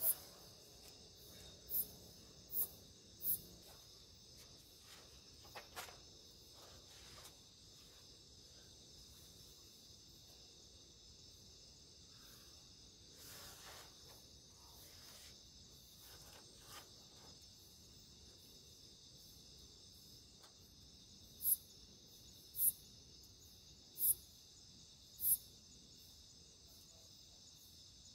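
Night insect chorus: a steady high drone of crickets. Over it come two runs of four sharp, high chirps about a second apart, one at the very start and one about three-quarters of the way through.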